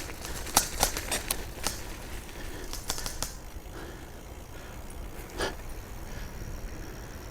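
A bicycle clicking and rattling as it is ridden over rough ground: a run of sharp, irregular clicks for about the first three seconds, then a low rumble with one more click a little past halfway.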